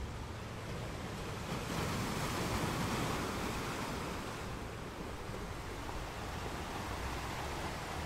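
Ocean surf: a continuous wash of breaking waves that swells louder about two seconds in, then eases back a couple of seconds later.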